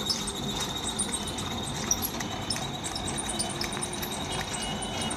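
Steady mechanical running noise with many light clicks and rattles and a thin high whine: a three-phase electric motor straining to turn a belt-coupled gearbox and stationary diesel engine, a load too heavy for the motor.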